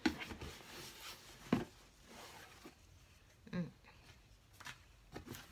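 A ribbon being pulled off a cardboard gift box, with scraping and rustling of the card as the box is handled and two light knocks, about a second and a half in and again about three and a half seconds in.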